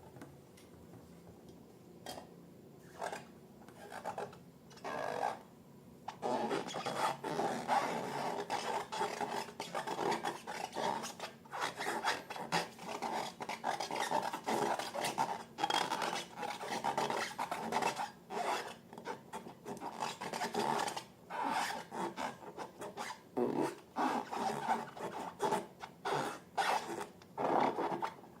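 Slime being stirred and worked, heard as irregular rubbing and rasping strokes. A few separate strokes come first, then a dense, continuous run begins about six seconds in.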